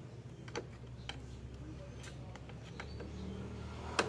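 Scattered light clicks and taps of a screwdriver handled against an aircon unit's wiring and sheet-metal casing, with a sharper click near the end.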